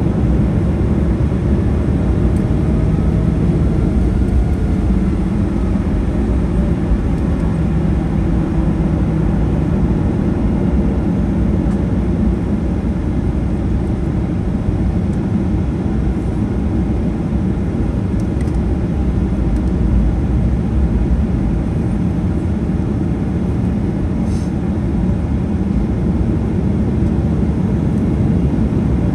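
Steady low rumble inside the cabin of a Boeing 737-900ER, its CFM56-7B jet engines and airframe running at an even level with no spool-up.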